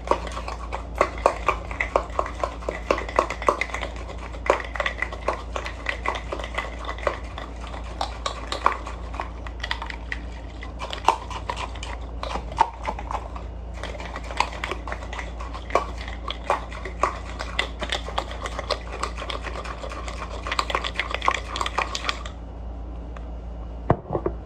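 A lidded cup of lemonade being shaken with an ice cube inside: a fast, irregular rattling and knocking of ice against the cup, with two short pauses, stopping suddenly near the end.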